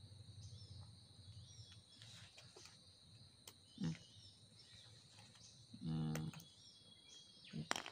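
Faint outdoor background with a steady high-pitched hum, broken by two brief low vocal sounds, a short one about four seconds in and a longer, held one about six seconds in.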